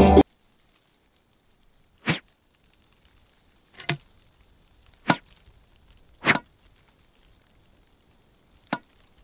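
Badminton rackets striking a shuttlecock in a rally: five sharp pocks, one to two seconds apart, with little else between. Music cuts off at the very start.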